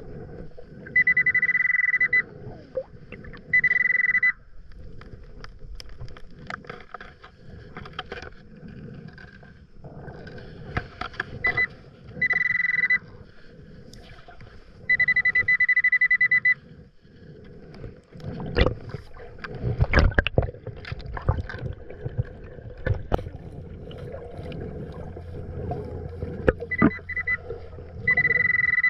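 Nokta Makro Pulse Dive underwater metal detector sounding a steady high-pitched alert tone five times, each lasting about one to two seconds, signalling a metal target in the sand. Between the tones there are clicks and scrapes from a hand digging and fanning sand underwater.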